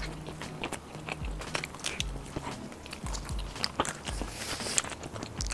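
Close-miked chewing of fried deboned chicken wing, with many short crisp clicks. About four seconds in, there is a brief rustle of plastic food gloves handling the food.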